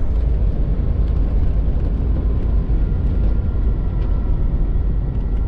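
Steady engine and road rumble of a GMC Safari van driving along the road, with a faint steady whine over it.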